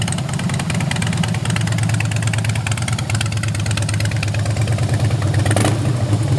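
2008 Harley-Davidson Fat Boy's Twin Cam 96 V-twin idling steadily through wrapped Vance & Hines exhaust pipes, with its regular low firing pulses.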